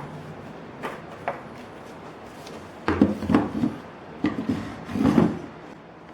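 Tool handling: a couple of light clicks, then three clunks and knocks about a second apart as the impact drivers and bit are set in place.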